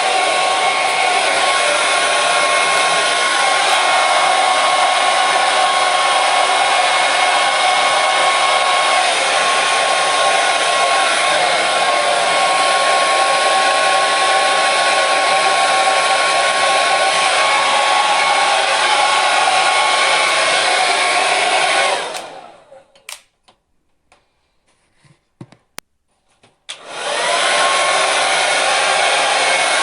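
Hair dryer running steadily, a rush of air with a high whine in it. About three quarters of the way through it winds down and stops. After a few seconds of near silence it starts again, the whine rising as the motor spins back up.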